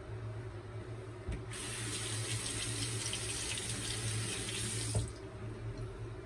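Sink tap opened about a second and a half in, water running steadily into the basin for about three and a half seconds, then shut off with a knock.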